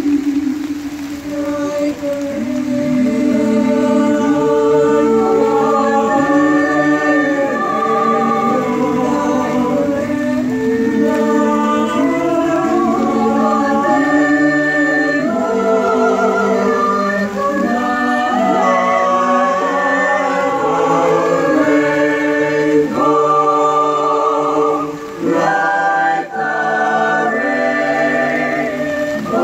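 High school choir singing a cappella in several-part harmony, with long held chords and two brief breaks a few seconds before the end.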